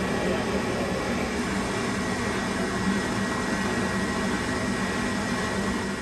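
Steady running noise of the burner on a firing Weil-McLain cast-iron steam boiler: an even rush with a steady low hum and a fainter high whine.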